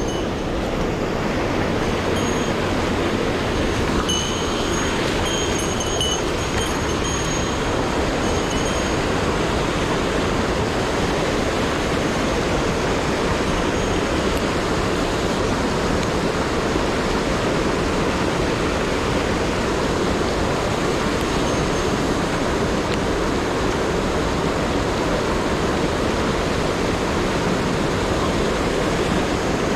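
Mountain headwater stream rushing over boulders and small cascades: a steady, loud rush of whitewater.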